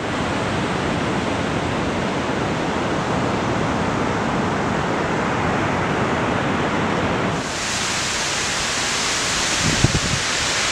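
Steady, even rushing noise of ocean surf and wind. About seven seconds in it turns brighter and hissier, and near the end there are a few low bumps of wind on the microphone.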